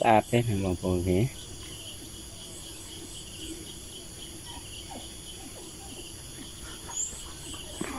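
Steady high-pitched chirring of insects in a garden, after a voice speaks briefly in the first second. A single short high chirp, like a bird's, comes about seven seconds in.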